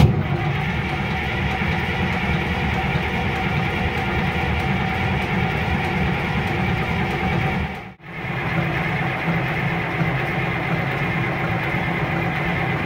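Case 2470 tractor's six-cylinder diesel engine cranked over on the electric starter with the fuel shut off, so it turns steadily without firing. This is the no-fuel crank after an oil change. The cranking breaks off briefly about eight seconds in, then resumes.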